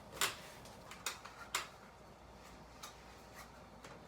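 Short clicks and rustles of a blood pressure cuff being handled and wrapped onto an arm, three sharp ones in the first second and a half, then quieter handling.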